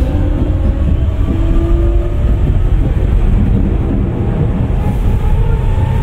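Tokyu 9000 series electric train running, its Hitachi early-type GTO-VVVF inverter and traction motors whining in several tones that shift in pitch over a steady rumble of wheels on rail.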